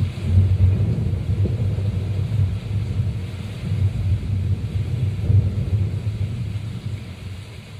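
Low rumble of distant thunder, fading away near the end.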